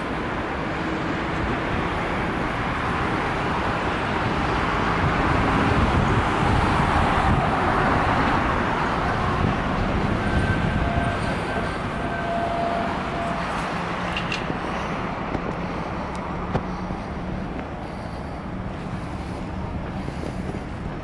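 A vehicle passing: a rushing noise that swells to its loudest about seven seconds in, then slowly fades.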